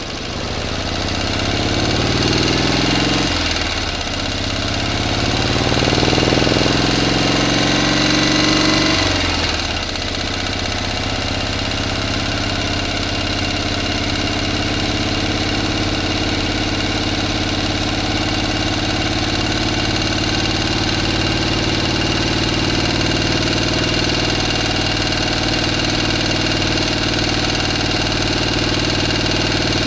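A motor engine running: it revs up twice in the first ten seconds, its pitch climbing each time, drops back sharply, then runs on at a steady speed.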